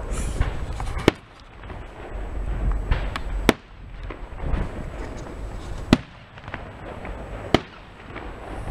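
Aerial fireworks shells bursting: four sharp bangs roughly two seconds apart, with low rumble and crackle between them.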